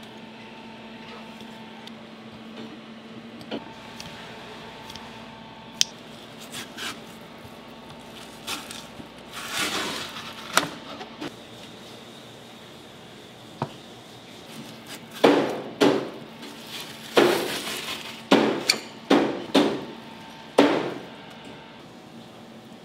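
Kitchen handling sounds at a steel prep counter as a salmon side is pin-boned and moved: scattered light clicks of tools, then a run of about eight sharp knocks and clatters in the second half, over a low steady hum.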